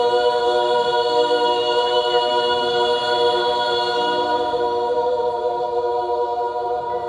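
Recorded choir singing one long sustained chord, several voices holding steady pitches without a break.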